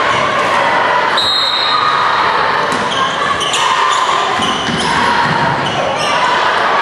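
Indoor basketball game in a gym: sneakers squeak on the hardwood court and a ball bounces over steady echoing crowd chatter. A brief high tone sounds about a second in, and the squeaks come thick from about three seconds on as play runs up the court.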